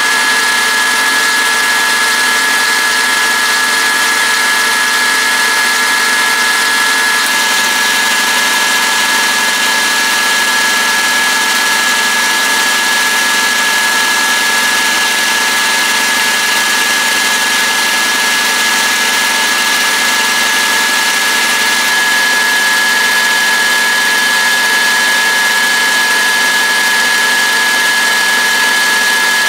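A workshop machine running steadily, with a high whine over a hiss. It is apparently at work making a replacement switch cap for the boom box. The tone shifts slightly about seven seconds in.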